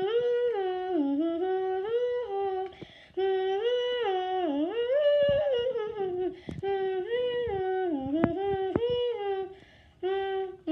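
A woman humming a tune in long held notes, with a short break about three seconds in and another near the end. A few sharp clicks come through in the second half.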